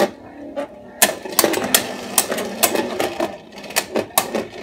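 Two Beyblade Burst spinning tops, Strike Valtryek V3 and Noctemis N3, spinning and repeatedly clashing in a clear plastic stadium. They make an irregular run of sharp plastic clacks, several a second.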